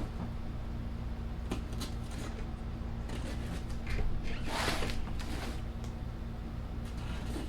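Parts packaging being handled: scattered light clicks and knocks, with a louder rustling scrape about four and a half seconds in, over a steady low hum.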